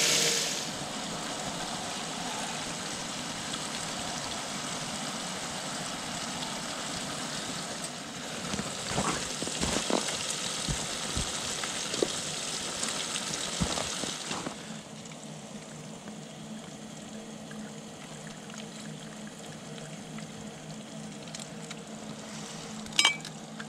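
Hot water pouring and trickling into a tea mug, with a few light clinks, over a steady hiss.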